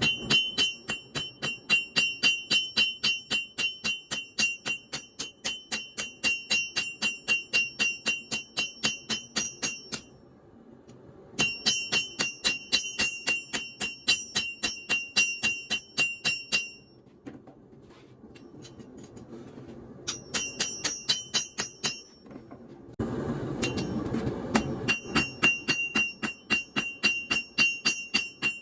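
Hand hammer striking steel on an anvil, about three to four blows a second, each blow ringing brightly. The hammering stops briefly several times and picks up again.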